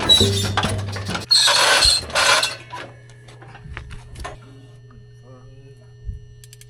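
Metal cattle-handling chute rattling and clanking loudly for about the first two and a half seconds, then going quiet over a steady low hum.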